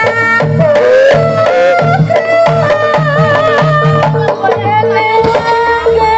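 Loud, amplified Javanese jaranan gamelan music: kendang drums beat a steady rhythm under a repeated metallic chime note, with a wavering melody bending over the top. About five seconds in the drum pattern changes and a steadier bass comes in.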